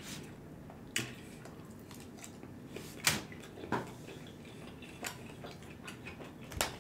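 Eating sounds: a handful of separate clicks and taps of a metal fork against aluminium foil trays of stir-fried noodles, with chewing.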